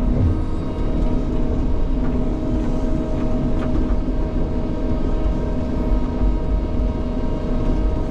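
SANY tracked excavator's diesel engine running steadily under load, with a constant hum of held tones over a low rumble and a few faint knocks.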